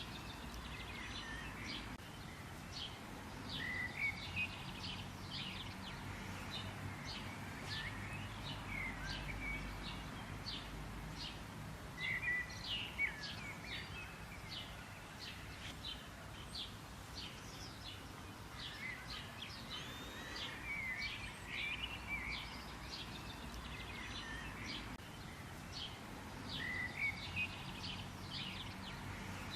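Birds chirping and calling throughout in quick short notes, some gliding up or down in pitch, over a faint steady low rumble.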